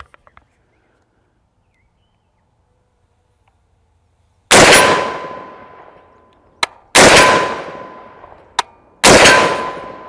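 Three shots from a .50 Beowulf AR-15 rifle, about two seconds apart, starting about four and a half seconds in, each with a long fading echo. After each hit the AR-500 steel target rings with a steady tone.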